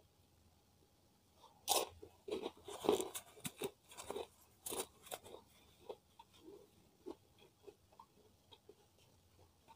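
A crisp kerupuk (Indonesian cracker) bitten and chewed close to the microphone. A loud crunch comes a little under two seconds in, followed by a quick run of crunching chews that grow sparser and fainter toward the end.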